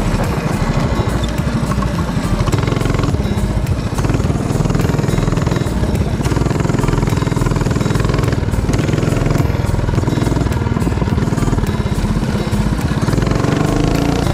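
Mini bike's small engine running steadily under way on a dirt trail, its pitch rising near the end as the throttle opens.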